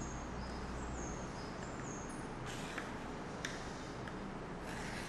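Pencil drawn along a ruler across a paper disc: a few short scratchy strokes, about halfway in, again near three and a half seconds, and near the end. Before that, faint high chirps repeat about once a second over a steady background hiss.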